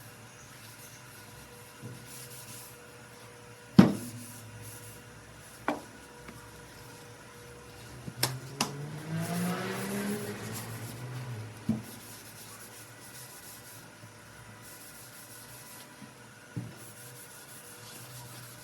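Handling sounds on a wooden cutting board being finished: a few sharp knocks of objects set down on wood, the loudest about four seconds in, with rubbing between. In the middle comes a rising pitched tone lasting about three seconds.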